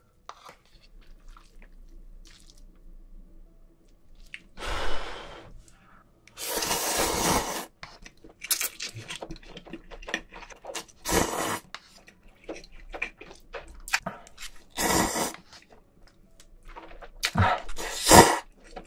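A person slurping instant cup ramen noodles, in a series of loud, noisy slurps with the longest about seven seconds in. Chewing and small clicks come between the slurps.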